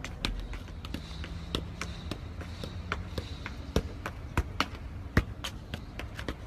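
A ball being juggled on knees and feet: irregular sharp taps, with a few louder thumps, and light footfalls on paving.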